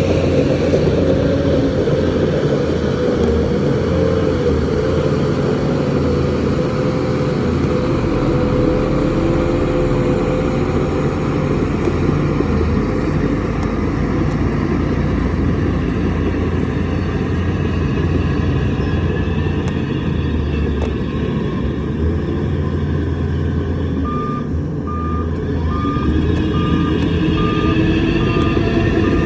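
Heavy diesel construction machinery running steadily with a deep engine sound. Near the end a reversing alarm starts beeping at an even pace.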